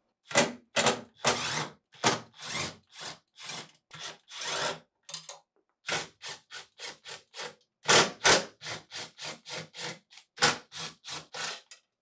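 Milwaukee FUEL cordless power driver with a 3/8-inch nut-driver bit, run in many short bursts of about two or three a second, backing out the screws that hold the freezer door's brackets to the drawer slide rails.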